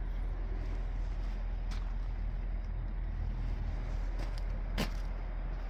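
Diesel truck engine idling with a steady low rumble, and a few sharp clicks over it, the loudest about five seconds in.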